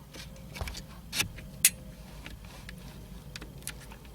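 Plastic clicks and knocks of a replacement wiper stalk switch being pushed home into its housing on the steering column, with one sharp click about one and a half seconds in.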